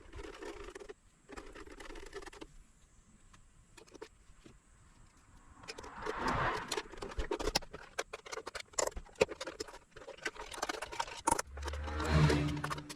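Clicks, taps and scraping of hard parts being handled, sparse at first and busier from about halfway, with a brief low motor hum near the end.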